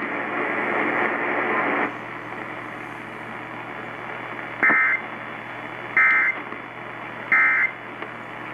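Emergency Alert System end-of-message signal over AM radio: three short bursts of screechy digital data tones, about a second and a half apart, over steady radio hiss. The hiss is louder for the first two seconds.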